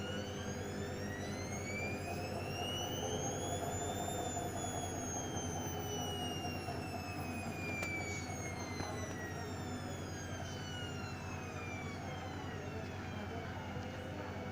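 Hoover washing machine's drum motor whining, rising in pitch for about four seconds as the drum speeds up, then falling slowly as it slows down, over a steady low hum.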